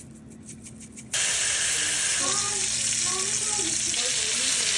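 Food frying in a hot pan: a loud, steady sizzle that starts abruptly about a second in, after a quieter stretch with a few small clicks.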